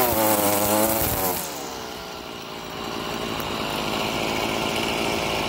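Stihl FS38 string trimmer's 27.2 cc two-stroke engine running at high revs, then the throttle is let off about one and a half seconds in and it drops to a lower, steady idle.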